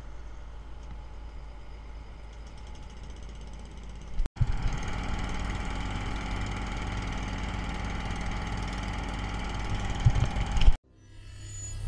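Fire truck's engine running steadily. It follows a fainter low rumble and cuts off abruptly near the end.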